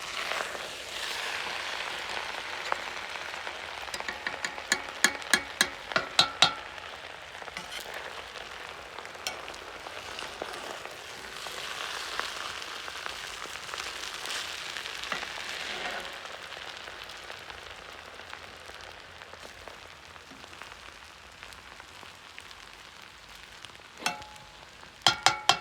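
Plov sizzling in a cast-iron kazan over the fire, its bottom layer catching and scorching. A metal utensil clinks and scrapes against the pot in a quick run of ringing knocks about four to six seconds in, and again near the end.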